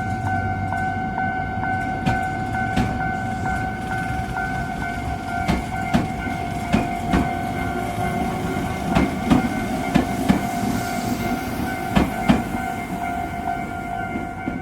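An Iyotetsu Takahama Line train passing over a level crossing, its wheels clacking over the rail joints, often in pairs, over a low rumble. The crossing's warning bell rings steadily and stops near the end.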